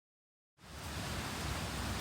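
Dead silence for about the first half second, then the steady rush of a mountain stream flowing.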